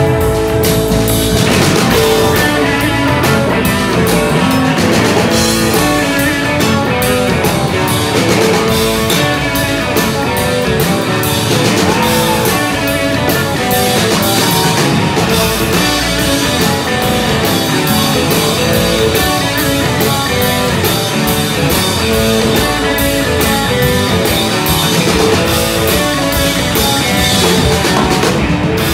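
Rock band playing live, an instrumental passage of electric guitar over a drum kit, loud and steady.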